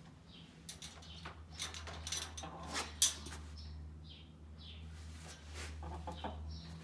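Chickens giving a few short, high chirps, with scattered scratching and knocking sounds and one sharp knock about three seconds in, over a steady low hum.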